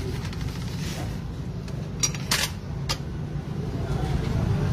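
A few sharp metal clinks about two to three seconds in, as a long steel tool knocks against a Honda Click 125 engine's crankcase during reassembly, over a steady low hum.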